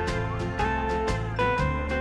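Background music led by a plucked guitar, with a steady rhythm of picked notes.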